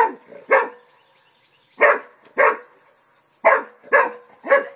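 English Springer Spaniel barking at a turtle: short, sharp barks in quick pairs, about half a second apart, with a pause of about a second between groups and three in a row near the end.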